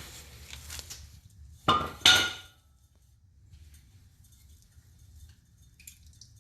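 Metal clinking and clanking as an old front shock absorber and its mounting hardware are pulled free under a Jeep. There is light clatter at first, then two sharp metallic knocks about two seconds in that ring briefly, then only faint ticks.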